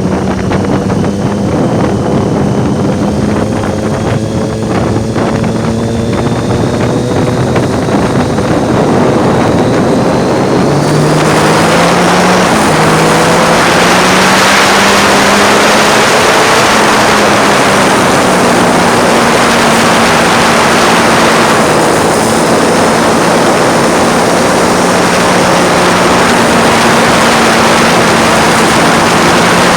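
Triumph Street Triple's 675 cc inline-three engine running under way, its pitch dropping then climbing about a third of the way in. Heavy wind rushing over the microphone swells up at the same moment and stays loud.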